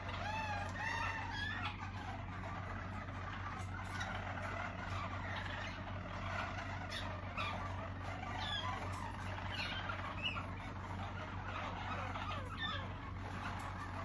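Harzer Roller canaries singing their low, rolling song: overlapping warbling rolls and gliding notes that go on throughout, over a steady low hum.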